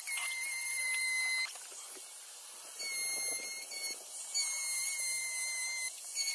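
High-speed power carving tool whining at a steady high pitch, cutting out and starting up again several times, with a longer break about a second and a half in.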